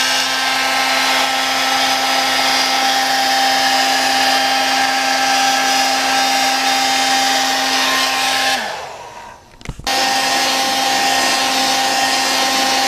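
Electric heat gun blowing hot air, a steady fan rush with a motor hum, warming masking tape so it will peel cleanly off fresh paint. About eight and a half seconds in it is switched off and its hum winds down, then it comes back on abruptly at full speed a second later.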